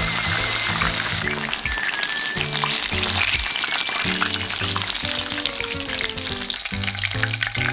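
Potato-starch-coated chicken thigh shallow-frying in oil in a frying pan, sizzling and crackling steadily as the coating crisps golden brown.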